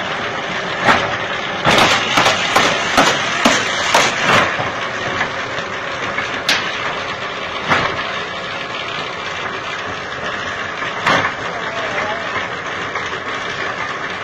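Bamboo-splitting machine running steadily as a green bamboo pole is pushed through its bladed splitting head, with sharp cracks as the pole splits: many in the first four seconds or so, then a few scattered later.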